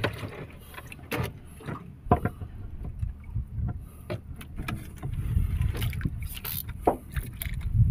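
Wind and water noise around a small wooden fishing boat, a low rumble that grows louder in the second half, with scattered sharp clicks and knocks as fishing tackle is handled.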